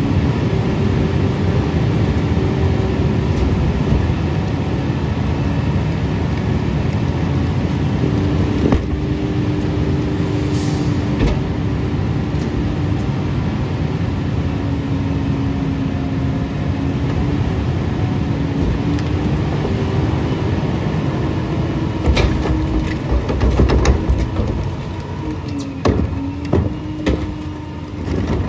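Diesel engine of a Western Star rear-loader garbage truck, roaring at raised revs to drive the Pak Mor packer's hydraulics through a compaction cycle. The revs climb right at the start and hold steady, with a brief hiss near the middle. Near the end, several sharp bangs come as carts are handled and emptied at the hopper.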